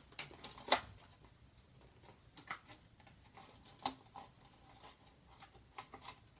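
Clear plastic blister packaging being handled and crinkled by hand, with scattered crackles and two sharper clicks, one just under a second in and one near four seconds.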